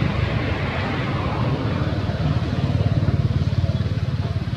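An engine running steadily, heard as a loud, low pulsing rumble.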